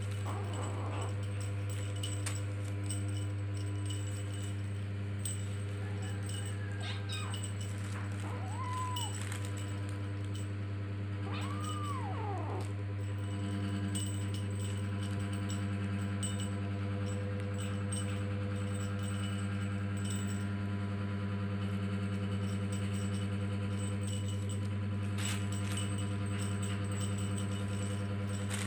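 A kitten mewing a few short times in the first half, over a steady low hum, with light rustling of the plastic sheet it is rolling on.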